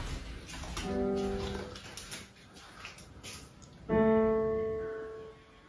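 Background music: a soft piano playing sparse held notes, one about a second in and a louder one about four seconds in, each fading slowly away.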